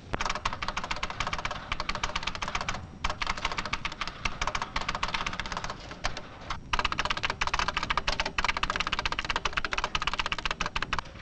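Fast typing on a computer terminal keyboard: a rapid, dense run of key clicks, broken by two short pauses, about three seconds in and again a little past six seconds.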